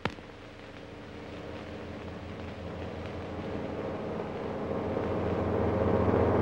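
A steady low drone of several held tones, growing slowly louder, after a sharp click at the very start.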